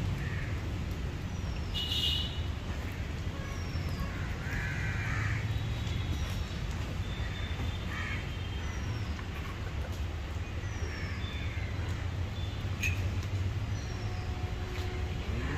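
Crows cawing now and then, and a small bird repeating a short falling chirp, over a steady low rumble.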